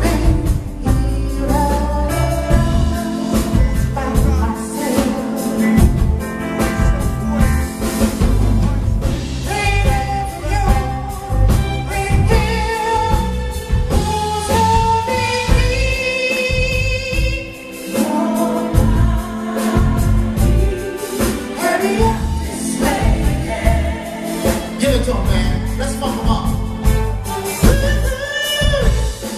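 Live soul band music: a male lead singer with female backing vocals over keyboard, electric bass and drums, with a steady beat.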